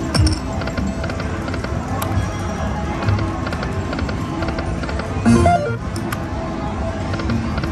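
Aristocrat Lightning Link 'High Stakes' video slot machine spinning its reels, its electronic music and rapid reel clicks over steady casino din. A short, louder jingle about five seconds in as the reels stop on a small line win.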